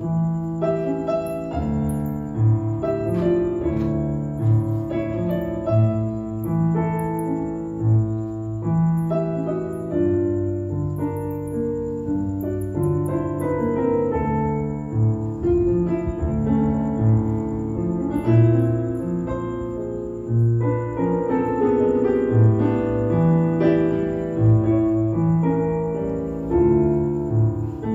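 Stage keyboard played with a piano sound in an instrumental interlude between sung verses: low bass notes under a melody line, in a steady flowing rhythm.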